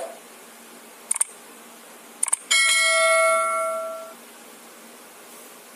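Subscribe-button animation sound effects: a short whoosh at the start, two quick double mouse clicks about a second apart, then a notification bell ding that rings out for about a second and a half.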